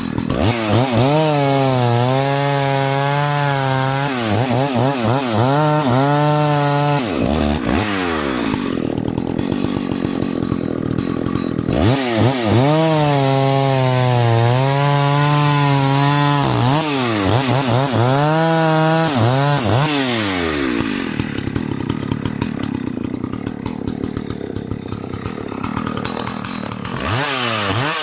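Husqvarna 285 CD two-stroke chainsaw cutting through a thick log, its engine pitch dipping under load through two long cuts and recovering in between. The engine then runs more quietly and roughly before revving up again near the end.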